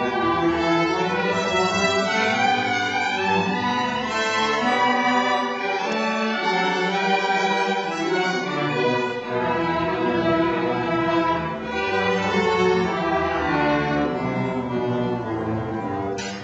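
Middle school string orchestra playing: violins, cellos and double basses bowing a marching tune together. The sound breaks off with a sharp click at the very end.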